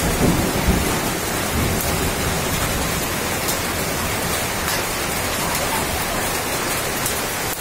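Heavy rain pouring steadily, with a low rumble underneath and a few sharp ticks scattered through.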